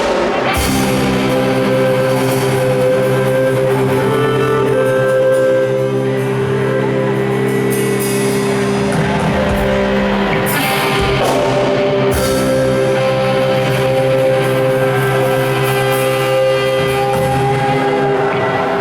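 A rock band playing amplified music, with long held chords that change about ten seconds in.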